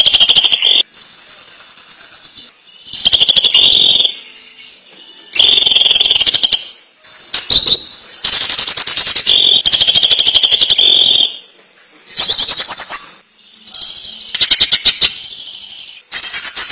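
Cucak ijo (green leafbird) singing in ngentrok style: bursts of one to three seconds of fast, rattling repeated notes, about seven of them, with quieter chattering in the short gaps between.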